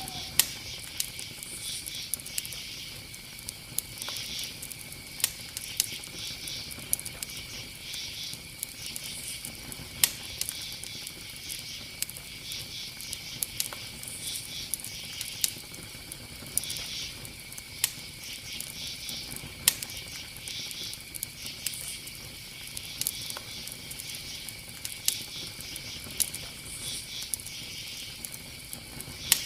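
Bonfire burning, crackling with sharp pops every second or two over a steady hiss. A faint steady high tone sits underneath.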